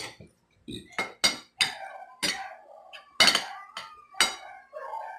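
Metal spoons and forks clinking and scraping against ceramic dinner plates while eating: about a dozen sharp, ringing clinks at irregular intervals.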